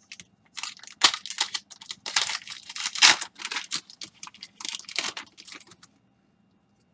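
A trading card pack's foil wrapper being torn open and crinkled: a run of irregular crackling rustles that stops about six seconds in.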